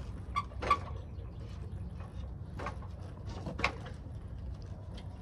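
A few short sharp knocks and clicks, about four in all, over a steady low rumble.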